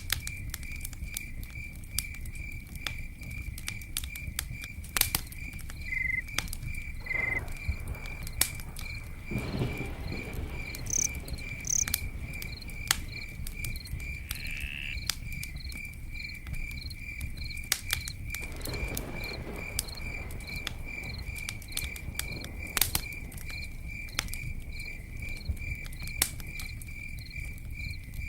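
Campfire crackling with scattered sharp pops, over a cricket chirping steadily in an even pulse, a little more than twice a second.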